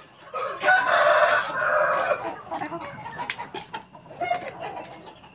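A flock of chickens: a rooster crows once, starting about a second in, then softer clucking follows with scattered short clicks.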